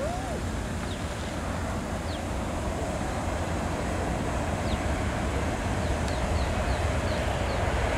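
Four Pratt & Whitney F117 turbofan engines of a Boeing C-17A Globemaster III on final approach, a steady low rumble with a hum that grows slowly louder as the aircraft closes in.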